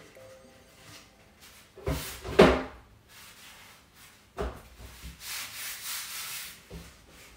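Handling noise from painting: a few knocks and clatters of a paintbrush against a plastic paint tub, the loudest about two and a half seconds in, then a second or so of dry brush scraping and a last light knock near the end.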